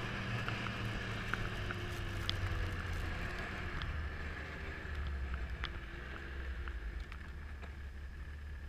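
Snowmobile engine running steadily while the sled moves, getting a little quieter toward the end.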